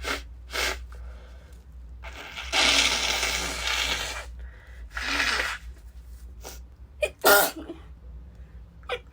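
A woman with a head cold sneezing again and again: several short sneezes, the loudest two close together about seven seconds in, and between them a long noisy nose-blow of about a second and a half.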